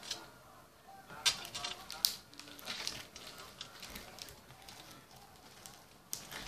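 White glue-and-shaving-foam slime being squeezed and pressed by hand, giving scattered sticky pops and clicks, the sharpest about a second and two seconds in and again near the end.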